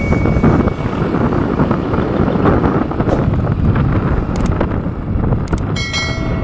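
Wind buffeting the microphone, mixed with road and engine noise from a moving motorcycle, a steady dense rumble. Music comes back in near the end.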